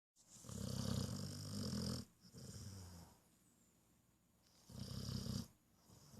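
Pit bull snoring in its sleep: two loud, buzzing snores about four seconds apart, the first lasting nearly two seconds, each followed by a shorter, softer breath.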